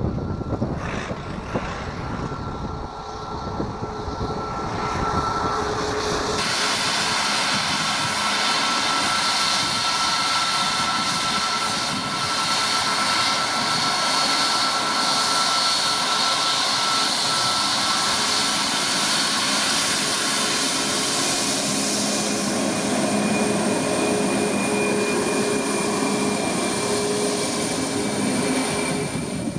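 Boeing 737 MAX 8's CFM LEAP-1B jet engines running at taxi power: a steady whine with several held tones. The sound is fainter and duller at first, then turns suddenly louder and brighter about six seconds in and stays close and steady.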